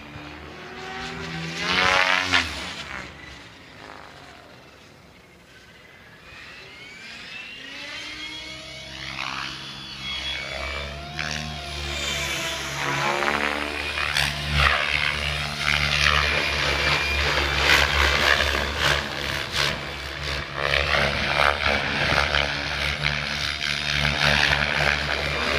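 Electric RC helicopter, a Gaui X7 Formula with a Kontronik Pyro 750 brushless motor and 685 mm SpinBlades rotor blades, flying aerobatics: the rotor chop and motor whine rise and fall in pitch as it moves. A loud pass comes about two seconds in and the sound is fainter a few seconds later. From about eight seconds on it grows louder and stays loud as the helicopter comes in closer.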